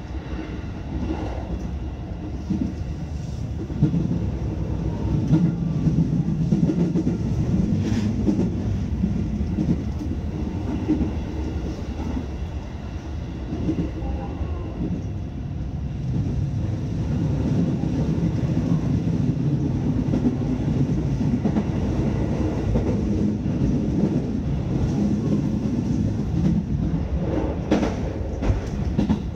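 Electric rapid train running at speed, heard from inside the front car just behind the driver's cab: a steady rumble of wheels on rail, with occasional sharp clicks from the track.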